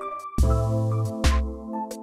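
Background electronic music with a steady beat: synth chords over a deep bass, with a drum hit roughly every second.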